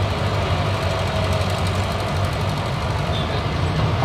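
Diesel engines of a Caterpillar tracked excavator and a farm tractor running steadily with a low, pulsing rumble, the excavator swinging back from the trailer and digging.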